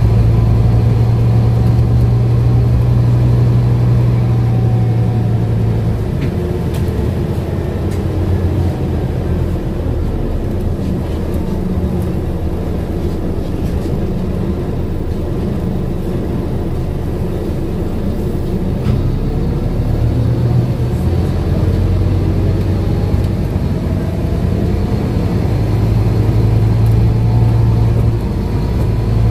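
Scania N230UD double-decker's five-cylinder diesel engine heard from inside the bus while it is under way. There is a steady engine drone that eases off about six seconds in and builds again after about twenty seconds, with a faint whine that glides up and down in pitch.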